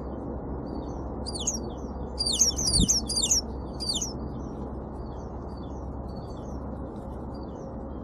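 Small songbirds calling: a quick run of loud, high, downward-sweeping notes a second or so in, lasting about three seconds, over scattered faint chirps and a steady low background noise. A brief low thump comes near the middle.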